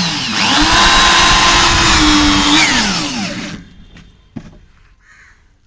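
Power drill driving a one-inch screw with a washer into a fridge's thin sheet-iron body. A short spin winds down, then a run of about three seconds spins up, holds a steady whine and winds down. A single click follows about a second later.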